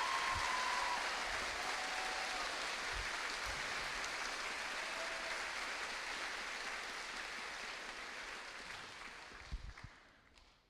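Audience applauding, steady at first and fading out over the last couple of seconds.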